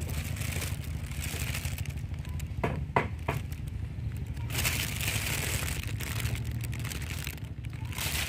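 Crinkling and scraping handling noise, with a few sharp knocks about three seconds in, over a steady low rumble.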